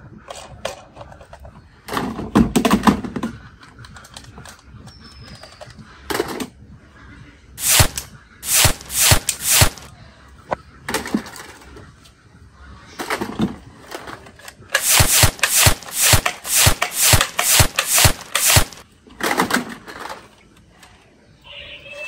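A series of sharp clicks and knocks, some single and some in quick runs, with the longest run of about ten coming roughly two a second in the second half.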